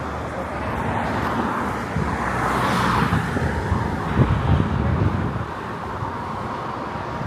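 Road traffic noise from cars on the street, with a vehicle passing about two to three seconds in.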